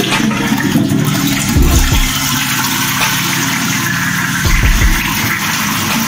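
Toilet flushing, set off by a pneumatic Catis-type wall push button: water rushes steadily into the bowl, with two dull thumps partway through. The flush triggering at all is the sign that the worn button plunger, patched with hot glue, now pushes enough air to release the cistern valve.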